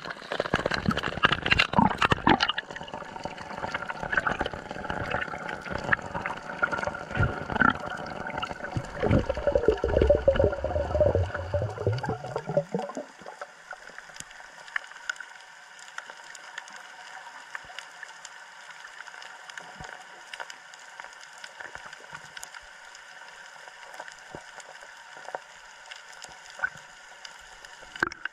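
Water splashing and gurgling around a GoPro camera in the sea. About halfway through it drops suddenly to a steady, muffled hush with faint scattered ticks, as the camera sits underwater.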